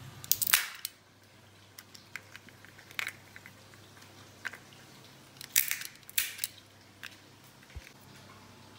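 Walnut shells cracking in a handheld squeeze nutcracker: a few sharp cracks and crunches, the loudest about half a second in and again around five and a half to six and a half seconds in, with smaller clicks and crackles between.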